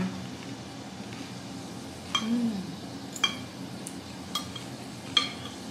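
Metal spoon and fork clinking against a ceramic bowl, four light clinks spread over the last few seconds, with a short hummed "mm" from the eater about two seconds in.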